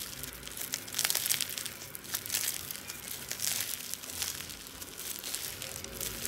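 Yellow floam, clear slime packed with foam beads, being squeezed and pulled apart by hand, the beads crackling and popping in quick irregular clusters.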